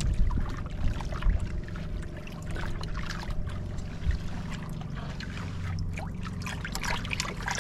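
Sea water lapping and trickling against a small outrigger boat's hull, with scattered small splashes over a low steady rumble.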